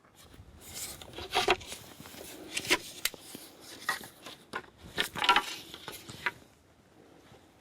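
Yurt roof poles and roof wheel being handled and laid out: irregular knocks, clatter and scrapes, with a few sharper knocks.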